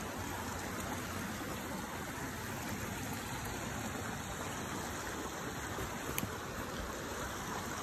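Shallow rocky creek running over small cascades, a steady rushing of water, with one brief click about six seconds in.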